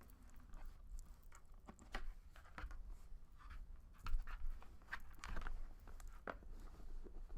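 Wrapping being pulled off a handbag by hand: irregular rustles, crinkles and light clicks, with a few louder crackles scattered through.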